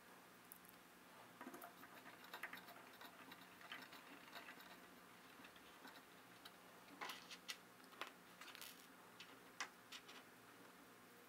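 Faint, scattered clicks and light ticks of small metal tools and printer parts being handled while a hex key drives the bolts of a stepper motor mount, with a few sharper clicks in the second half.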